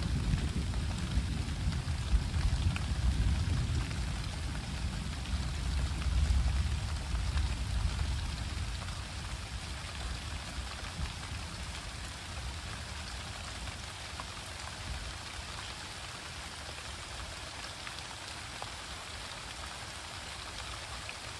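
Steady rain falling during a night thunderstorm, with a low rumble of rolling thunder that swells about six seconds in and dies away over the next few seconds, leaving only the rain.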